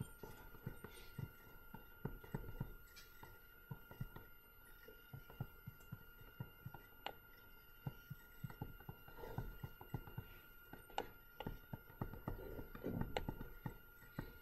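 Quiet room tone: many small, irregular taps and clicks and a few soft rustles, over a faint steady high-pitched electrical whine.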